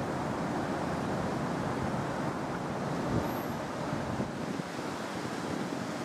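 Steady outdoor street noise: wind buffeting the microphone over the low rumble of city traffic.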